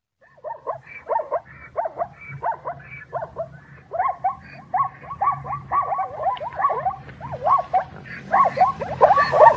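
Zebra barking call: a long series of short, yelping barks, about two a second at first, coming faster and closer together from about four seconds in.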